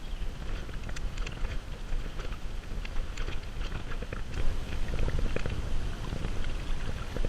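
Kayak paddling: water splashing and dripping off the paddle blades in many small ticks over a steady low rumble.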